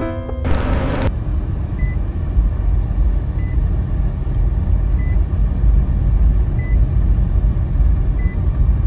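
Street ambience: a steady low rumble of road traffic, after a short burst of noise about half a second in. A faint short beep repeats about every second and a half.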